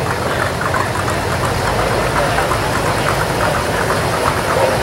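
Engine of a 1967 Ford Mustang fastback idling as it rolls slowly past, with other classic cars' engines running behind it. The sound is a steady, even rumble with no revving.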